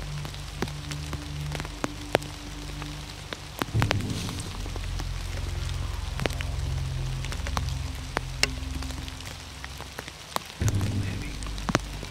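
Rain falling, with many single drops striking sharply and irregularly, over low, steady background music.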